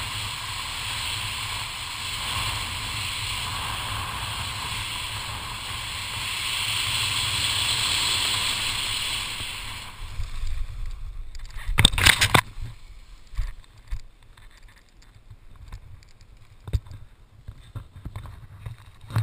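Wind rushing over a helmet-mounted camera's microphone during a parachute descent, growing louder on the final approach and dropping away about ten seconds in at touchdown. About two seconds later comes a short, loud burst of scuffing as the landing ends, then scattered light rustles and clicks of parachute fabric and grass.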